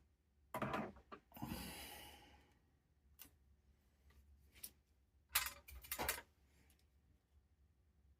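Hand-handling noises of small parts: a few sharp clicks and knocks spread through, with a cluster of them near the end, and a longer hissing rustle about a second and a half in.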